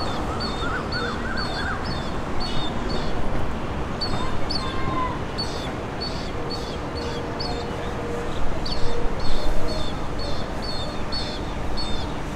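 Small birds chirping, short high calls repeating a few times a second, over a steady low rumble.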